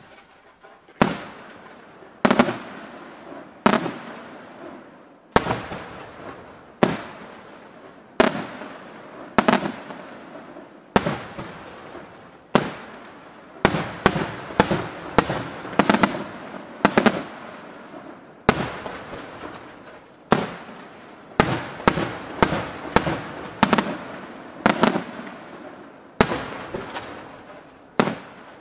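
Aerial fireworks shells bursting one after another, each a sharp bang trailing off in a long echoing rumble, about one every second or so. Around the middle and again later the bangs come in quicker runs of several.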